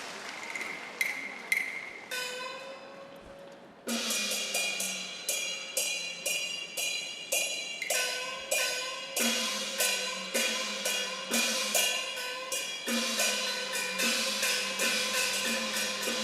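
Cantonese opera percussion ensemble of gongs, cymbals and clappers playing an instrumental opening. A few sharp strikes and a ringing stroke come first, then from about four seconds in a steady pattern of ringing metal strikes at about three a second.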